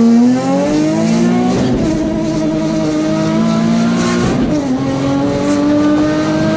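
Turbocharged Nissan 350Z HR's 3.5-litre V6 at full throttle in a roll-on pull, its pitch climbing hard and dropping at three upshifts: about half a second, just under two seconds, and about four and a half seconds in. The engine is running with exhaust leaks, which the owner says keep it from running right.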